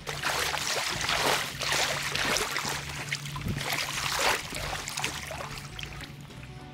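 River water splashing and sloshing close by in uneven surges, about a second apart.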